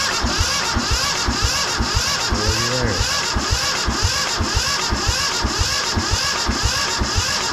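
Yanmar 1500 tractor diesel being cranked over on its electric starter without firing, a steady rhythmic chugging of compression strokes about five a second under the starter's whine. The injector lines are off, so it cannot start; it is spun over to check that the injection pump is delivering fuel.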